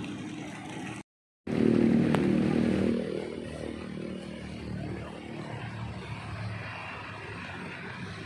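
Motor traffic running steadily, with a louder engine passing for a second or two just after a brief cut to silence about a second in.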